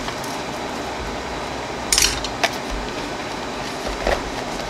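A cardboard box handled on a stone countertop: one brief scraping rustle about two seconds in and a smaller one just after, over a steady background hiss.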